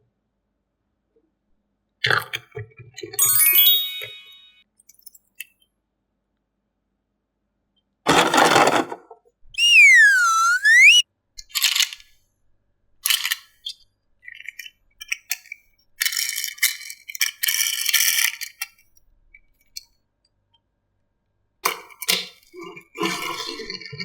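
Toy handling: scattered clicks, clinks and rattles of diecast toy cars and plastic playset parts. About ten seconds in, a bright sound effect dips in pitch and rises again.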